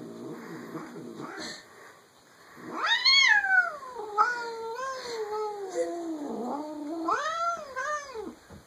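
Domestic cat vocalising: a low pulsing sound at first, then about a third of the way in a long, loud, wavering yowl that rises and slowly sinks in pitch, and a second shorter rising-and-falling yowl near the end.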